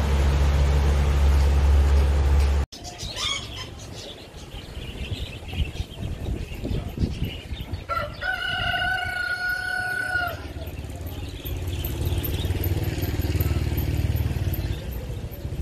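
River cruise boat's motor running low and steady as the boat passes with its wake; the sound cuts off suddenly about two and a half seconds in. About eight seconds in comes a single long call held at one pitch for about two seconds, and a low wind rumble picks up near the end.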